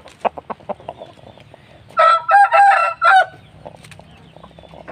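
A rooster crows once, about two seconds in, a single crow of a little over a second, with a few short soft clucks and ticks before it.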